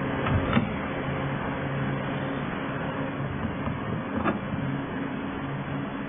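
Plastic clicks as a Nissan Micra's power window switch panel is unclipped from the door trim and its wiring connector unplugged: a couple of clicks about half a second in and another a little after four seconds in, over a steady low hum.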